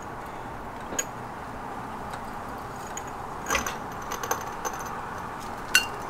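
A few light metallic clicks and clinks, scattered and sharp, over faint steady background noise: a floor jack being let down under the car.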